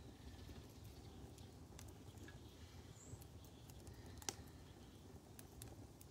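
Near silence with faint, scattered crackles and pops from a wood fire burning in a fire bowl, one sharper pop about four seconds in, over a low rumble.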